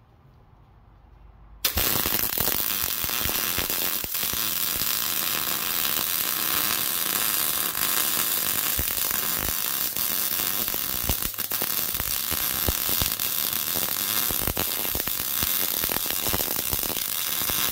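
MIG (wire-feed) welding arc, which strikes a little under two seconds in and runs steadily with a dense crackle as a heavy steel washer is welded onto the end of a steel pin.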